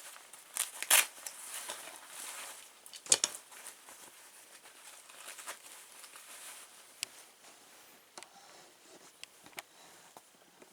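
Handling noises: light rustling with scattered clicks and knocks, the loudest about one and three seconds in, then fewer, quieter ticks.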